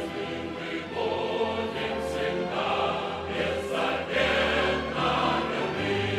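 Choral music: a choir singing held notes over a low, steady accompaniment.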